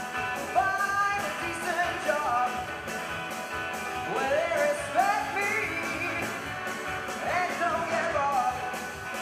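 Live folk-rock band playing, with accordion, acoustic guitar, upright double bass, keyboard and drum kit, and a voice singing a melody over them.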